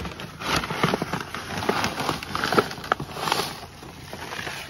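Brown paper bags crinkling and rustling as hands dig into a bag of seed mix to scoop it out, with many small irregular crackles and clicks.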